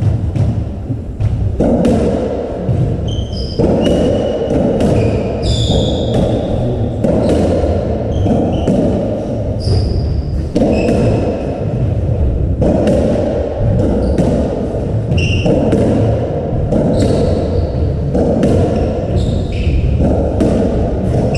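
Racketball rally: the ball knocks repeatedly off the rackets, the walls and the floor, in a large echoing court, with short high squeaks of shoes on the wooden floor between the hits.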